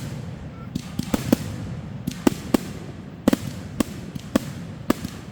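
Fireworks going off in quick succession, about ten sharp bangs at irregular intervals over a steady low rumble.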